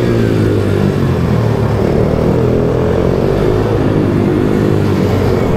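Pit bike engine running on track, heard from onboard, its pitch holding fairly steady with small rises and falls through a corner.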